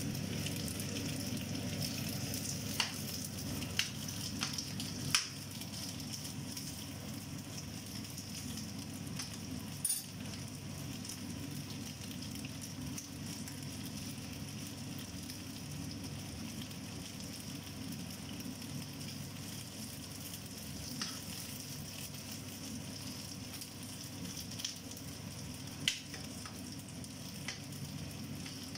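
Pieces of textured soy protein sizzling steadily as they fry in a pan, with a few sharp clicks as a metal spoon knocks against the pan while turning them.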